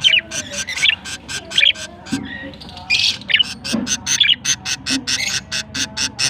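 Budgerigars chirping and squawking: a fast, even stream of short sharp chirps, about six a second, with louder squawks breaking in over it several times.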